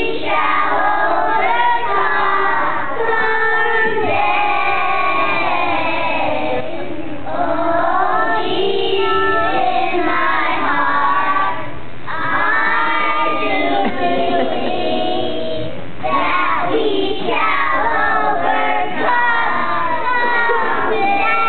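A group of young children singing a song together in phrases, with short breaths between them every few seconds.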